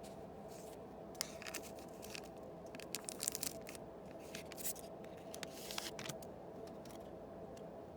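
A Yu-Gi-Oh booster pack's wrapper being torn open by hand: an irregular run of ripping and crinkling, busiest about three seconds in, over a faint steady hum.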